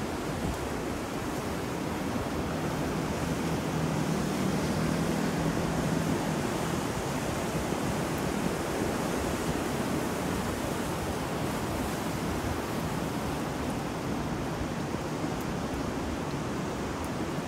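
Ocean surf and wind in a steady wash of noise, swelling a little for a few seconds about three seconds in.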